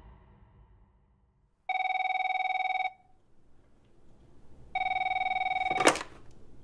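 Telephone ringing twice with a fast warbling two-tone trill, each ring about a second long, followed by a short click near the end.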